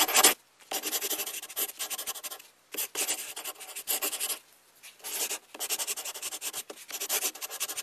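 Greebel coloured pencil scratching on sketchbook paper in rapid short shading strokes. It comes in bursts of a second or two with brief pauses between.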